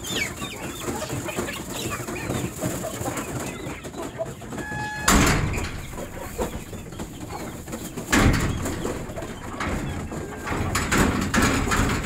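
Flock of caged chickens clucking, with chicks peeping in short high calls. Several loud rustling noises break in, about five and eight seconds in and again near the end.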